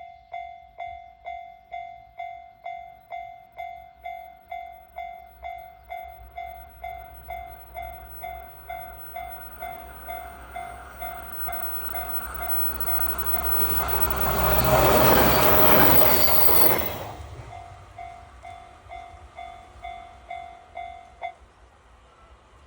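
Japanese railroad crossing bell clanging about twice a second while a JR 817 series electric train passes. The train's rumble builds, peaks past the middle and fades, and the bell stops abruptly near the end.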